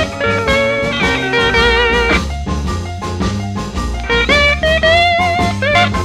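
Instrumental break in a slow electric blues: an electric slide guitar plays sliding notes with a wavering vibrato over bass and rhythm accompaniment. There are two phrases, one starting just after the beginning and the other about four seconds in.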